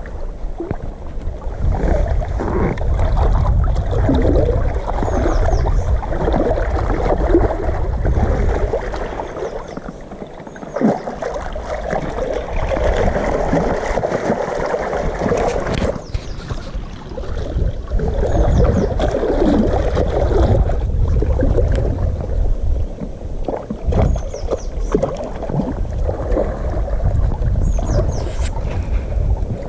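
Water sloshing and splashing against the tubes of an inflatable pontoon boat as it moves on a river, with a brief quieter spell about ten seconds in.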